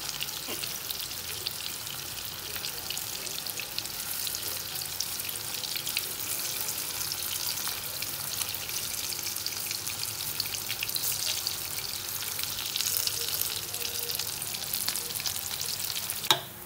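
Pieces of marinated vegetarian mock meat sizzling and crackling as they fry in hot oil in a pan. The sound cuts off suddenly near the end.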